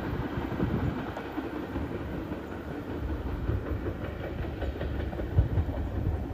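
Freight train tank cars rolling past with a steady low rumble, their steel wheels knocking irregularly over rail joints and the crossover switches.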